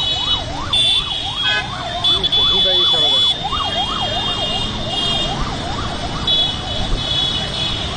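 An electronic siren wailing rapidly up and down, about three sweeps a second, dying away about six seconds in. Under it are steady high-pitched horn tones and the running engines of a large group of motorcycles.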